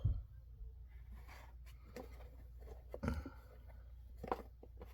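Scattered small knocks, clicks and rustling from objects and packaging being handled, with a louder knock about three seconds in, over a steady low hum.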